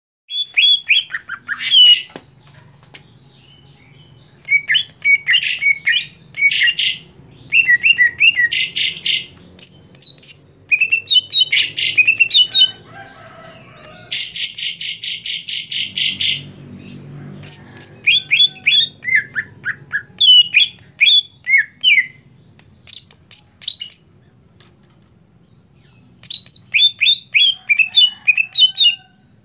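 Caged male greater green leafbird (cucak hijau) singing in quick phrases of high chirps and whistles with short pauses between them, and a fast buzzing trill about halfway through.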